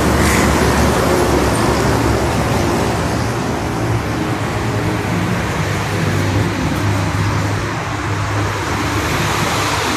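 Steady road traffic noise: motor vehicle engines running and tyres on the road, with a low engine hum throughout.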